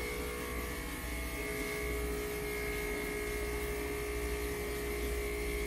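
A steady electrical hum with a higher whine above it, running evenly without change.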